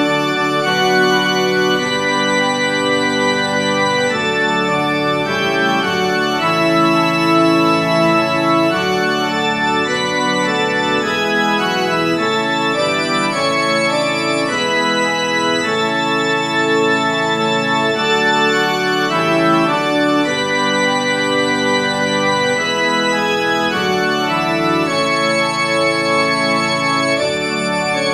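Organ music playing sustained, full chords that shift from one to the next, as a postlude closing the service.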